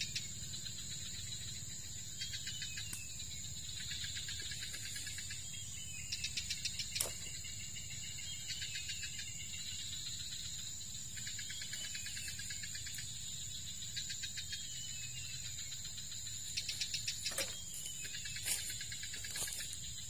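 Insects calling: a steady high-pitched buzz with short trains of rapid pulsing chirps every couple of seconds. A few dry-leaf crackles come through, one sharp one about seven seconds in.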